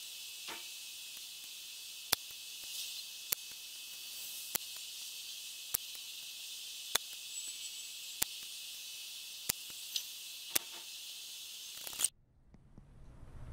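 Air rifle shooting at a paper target with an SMK B2 break-barrel springer: about ten sharp cracks at roughly even intervals of a little over a second, over a steady high hiss that stops suddenly near the end.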